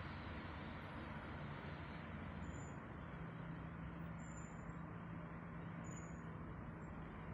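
Steady city street traffic: cars driving along a wide avenue below, with a low steady engine hum that joins about three seconds in.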